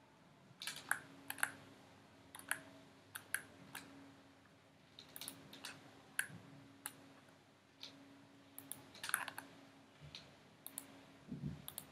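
Scattered clicks of a computer mouse and keyboard, some single and some in quick clusters, over a faint steady low hum.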